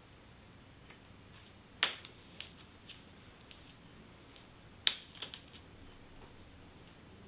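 Small plastic Kinder Surprise toy parts being handled and snapped together: two sharp plastic snaps about three seconds apart, with lighter clicks and ticks around them.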